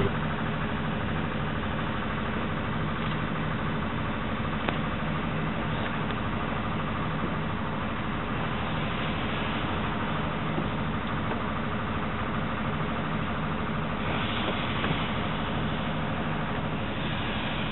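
Small steam saddle-tank locomotive moving slowly, a steady hiss and low hum with no distinct exhaust beats.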